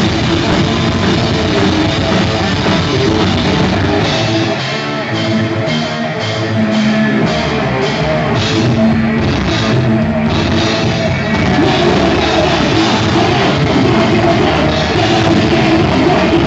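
Loud live crossover thrash metal from a band with distorted guitars and drums. About four seconds in, the bass and kick drum drop out for several seconds, leaving guitar and regular drum hits, before the full band comes back in.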